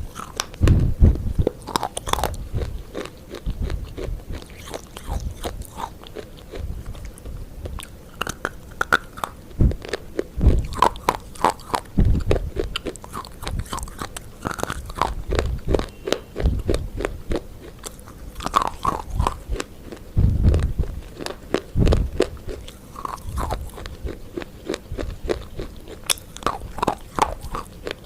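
Close-miked crunchy eating: rapid crackling bites and chewing, with dull low thuds every few seconds.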